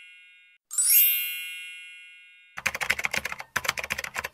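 A bright chime sound effect rings about a second in and fades over about two seconds, just as the tail of an identical chime dies away. A little past halfway, rapid keyboard typing clicks start up, a typing sound effect, and run on.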